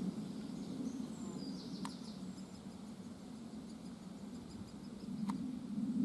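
Great spotted woodpecker nestlings calling from inside the nest hole: a continuous rapid high chatter of short notes, busiest about a second in. Under it runs a steady low hum, and there are two sharp clicks.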